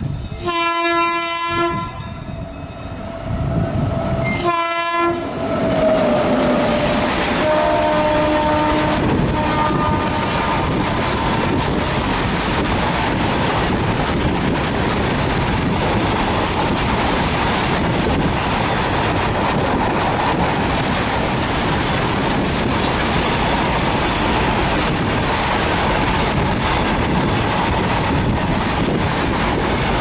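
Electric locomotive's horn sounding two short blasts about four seconds apart, the pitch falling away just after the second as it passes. Then a long, steady rumble and clatter as a rake of BCNA covered freight wagons runs past at speed.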